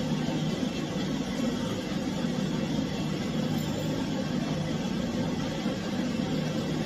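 Pet grooming dryer blowing steadily: a constant rush of air with a low hum.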